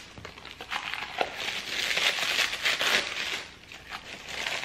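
White packing paper rustling and crinkling as it is unwrapped by hand from a drinking glass, in irregular crackles that grow busier partway through and then ease off.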